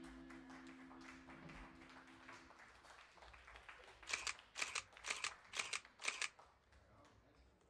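Nikon N90s 35mm SLR film camera firing its shutter five times, about two shots a second, each a sharp mechanical clack of mirror and shutter with the built-in motor winding on.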